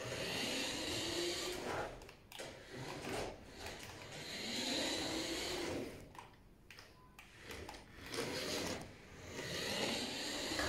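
Small electric drive motor of a toy RC truck whirring as it drives across a hard tabletop, in several bursts of a second or more as it starts and stops.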